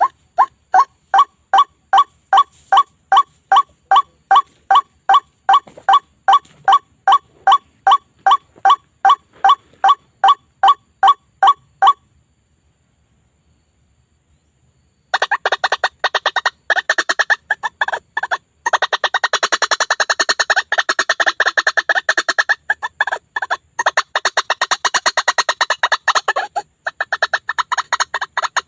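White-breasted waterhen (ruak-ruak) calls from a lure recording: a steady series of evenly spaced notes, about three a second, that stops about twelve seconds in. After a few seconds of silence, a denser, faster run of harsher calls starts.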